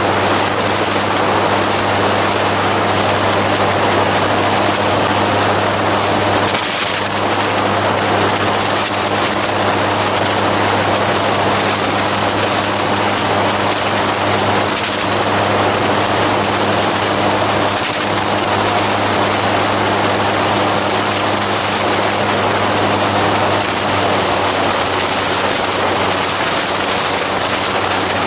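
Gyroplane in cruise flight: a loud, steady drone of the engine and pusher propeller under a constant rush of wind from the airflow.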